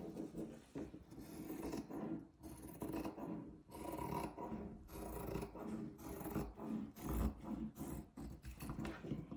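Scissors cutting through fabric in a series of irregular cutting strokes, with the cloth rubbing and sliding on the cutting mat as it is moved.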